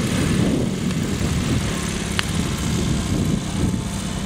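Off-road buggy's engine running steadily as it drives across a grass track, with a brief sharp click about two seconds in.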